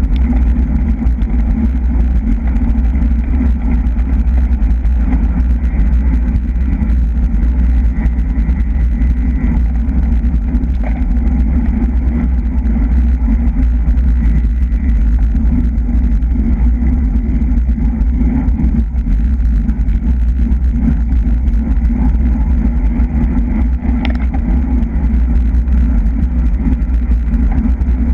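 Wind rushing over the microphone of a camera on a racing bicycle at speed: a loud, steady low rumble.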